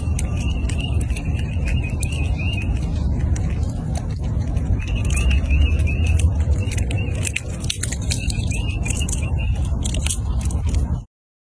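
A squirrel gnawing and crunching a nut, heard as rapid sharp clicks, over a steady low rumble. A high warbling chirp comes in three short runs, and all sound stops abruptly near the end.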